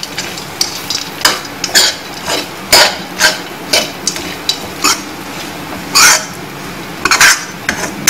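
Steel spoon stirring and scraping dry, crumbly rava upma around a metal kadhai: irregular scrapes and clinks of metal on metal, about one or two a second, over a faint steady hum.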